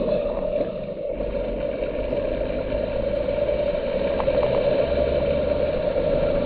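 Lorry on the move, heard from inside the cab: a steady engine and road drone over a low rumble.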